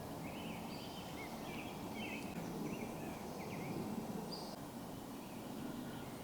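Several short bird chirps and calls over a steady low background rumble, the chirps clustered in the first four or five seconds.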